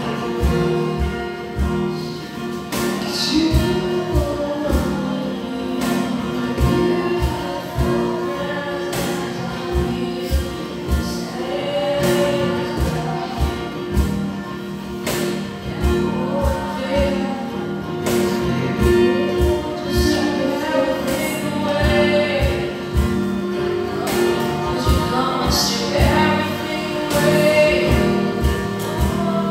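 A live worship band playing a gospel song: a woman singing lead over strummed guitars, keyboard and a drum kit keeping a steady beat.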